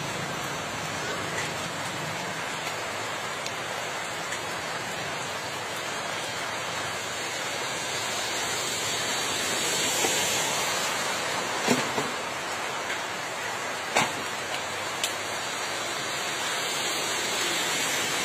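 Steady rain falling on a wet road, an even hiss. A few sharp knocks stand out about two thirds of the way through.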